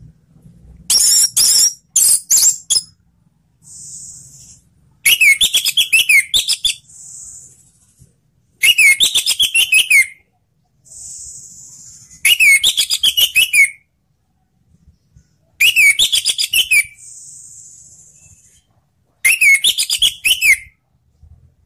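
Orange-headed thrush (anis merah) singing in full voice. It gives six loud phrases, each about a second and a half long and a few seconds apart, made of a fast stuttering run mixed with clear whistled notes. Soft high hissing notes fall in the gaps between phrases.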